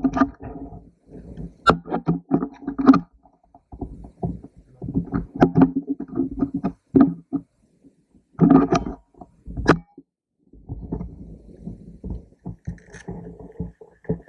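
Irregular bursts of rustling and knocking from a player moving with a gun-mounted camera, broken by a few sharp snaps, one about two seconds in and one near ten seconds.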